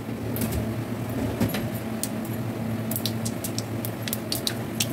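Mustard and fenugreek seeds crackling in hot mustard oil in a kadhai: scattered sharp pops at an irregular pace over a steady low hum.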